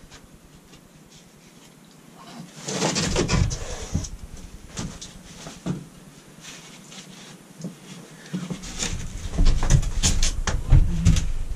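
A large 7/16-inch OSB sheet being handled and lifted into place against a van ceiling: scraping and knocking of the board, then a run of heavier thumps near the end as it is pushed up against the roof framing.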